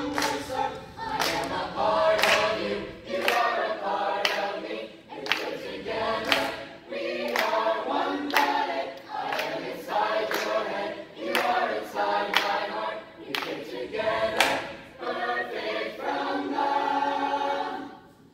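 A high school SAB choir singing a cappella, with sharp hand claps keeping a steady beat about once a second. Near the end the voices hold a final chord that cuts off sharply.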